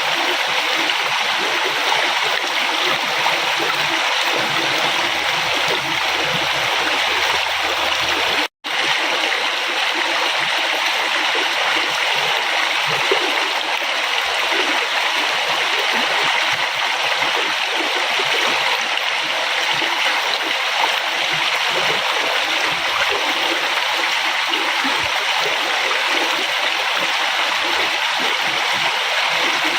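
River water flowing and rushing steadily over rocks, a continuous splashing, with a momentary dropout to silence about eight and a half seconds in.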